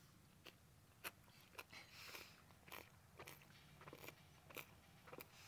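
A month-old Tennessee Walking Horse colt sucking his tongue as he drinks milk replacer from a bucket: faint, irregular wet clicks and smacks about two a second, with a longer slurp around two seconds in.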